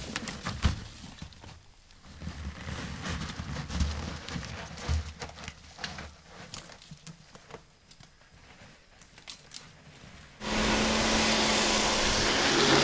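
Snow crunching underfoot, with scattered clicks and rattles, as a fat-tyre bike is pushed through snow. About ten seconds in this gives way abruptly to a loud, steady rushing noise with a faint low hum.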